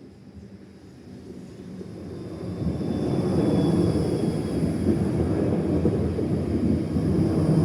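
Train approaching: a deep rumble that swells over the first three seconds, then holds steady and loud as it rolls close by.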